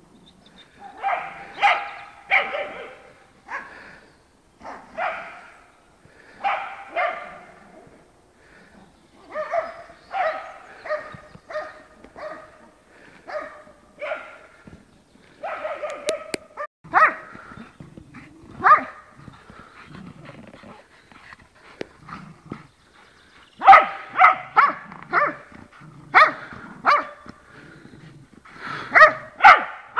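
Dog barking in play, short sharp barks coming in bunches with pauses between, the quickest and loudest run of barks near the end.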